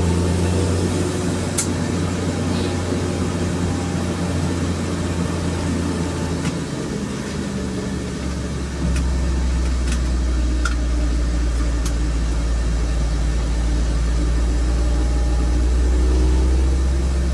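Engine and road noise heard inside the cabin of a moving vehicle: a steady low drone. About nine seconds in the drone becomes deeper and louder.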